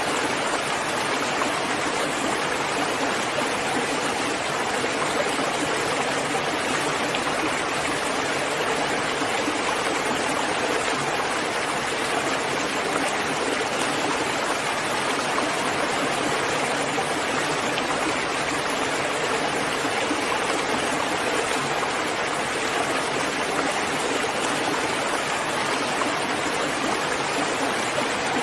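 Steady rain falling, an even, unbroken hiss of water with no single drops or pauses standing out.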